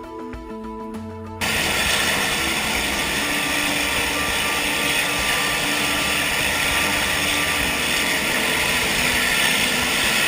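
Background music, then an abrupt cut about a second and a half in to the loud, steady noise of a floatplane's engine and propeller running.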